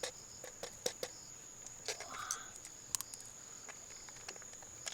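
A steady high-pitched insect trill, with scattered light clicks and taps over it.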